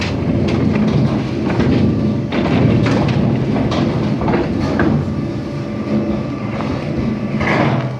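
A machine's engine running steadily in a tunnel, with many knocks and rattles over it as fallen rock blocks are hauled out. The sound drops away at the very end.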